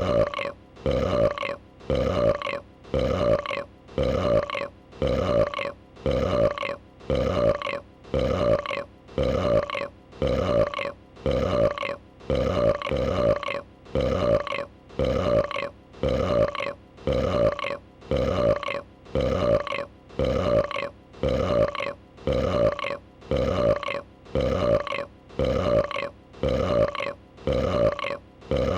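A female dragon's burp sound effect repeating in a loop, one short identical burp about every second.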